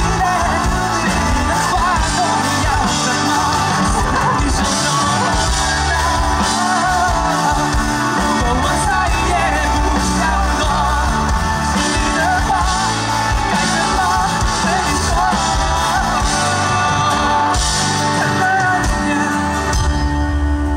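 Live rock band playing amplified electric guitars, drums and keyboard, with a male singer singing over it. Near the end the drums and vocal drop out, leaving low held keyboard tones.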